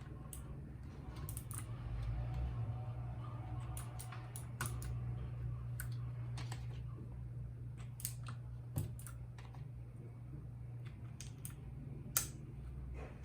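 Keys of a RAKK Lam Ang Pro mechanical keyboard with bronze switches being pressed: irregular, scattered clacks, with one sharper click near the end.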